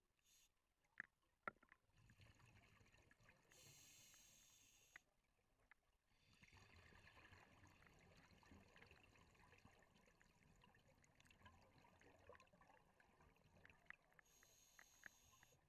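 Very faint scuba diver's breathing through a regulator, with the bubbling of exhaled air, twice: each long breath ends in a short hiss.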